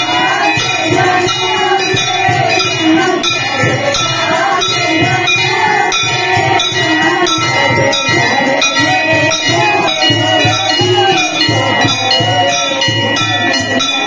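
Bells jingling and ringing continuously through an aarti, over a group of women singing a devotional song to a rhythmic beat.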